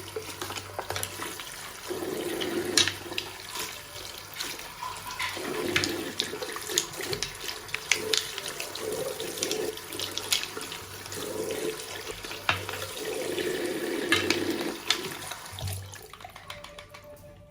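Water running from a tap into a sink while makeup brushes are rinsed under it, with irregular splashes and clicks; it fades near the end.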